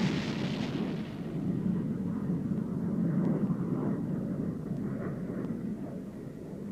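F-15 Eagle jet noise: a rushing roar whose high hiss fades over the first second or so, leaving a steady low rumble.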